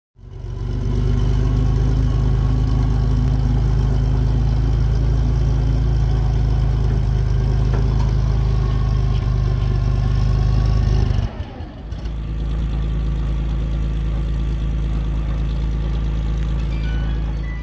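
Engine of a CVR(T)-type tracked armoured vehicle running steadily at idle. The sound breaks off sharply about eleven seconds in, and a second, slightly quieter stretch of the same steady engine running follows.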